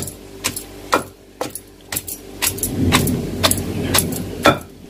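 A pestle pounding onions and spice masala in a stone mortar, with sharp knocks about two a second. The onions are being pounded only coarsely into the masala, not ground to a paste. A low rumble rises in the background during the second half.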